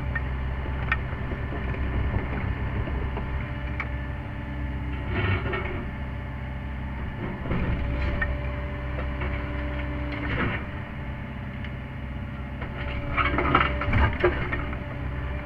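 Sany SY50U mini excavator's diesel engine running steadily under hydraulic load, heard from inside the cab. The tooth bucket scrapes and knocks against soil and a large stone several times, loudest near the end.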